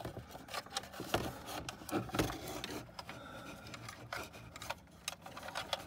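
Scattered small clicks and rubbing of a wire being fed by hand through a small drilled hole in plastic interior trim.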